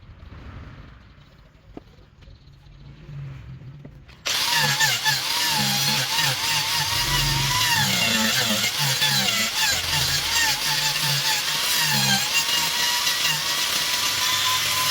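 A power tool cutting wood starts abruptly about four seconds in after a quiet stretch, then runs loud and steady with a whine that wavers in pitch as the load changes.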